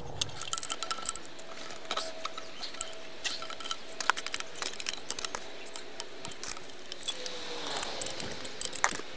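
Large adjustable steel wrenches clinking and scraping on brass fittings as an old pressure vacuum breaker backflow is unscrewed from its copper pipe: a run of sharp metallic clinks and clicks.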